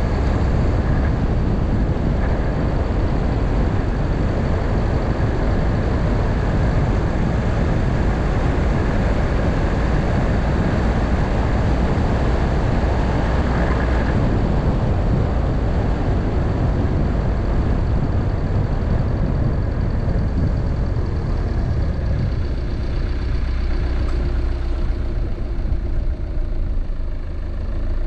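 A car driving on a road: a steady low rumble of engine and tyre noise. Over the last third the higher hiss thins out and the sound grows duller.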